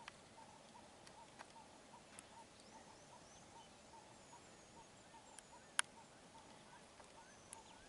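Near silence: faint outdoor background with a soft chirp repeating about three times a second, a few faint high calls, and several sharp clicks, the loudest a little after the middle.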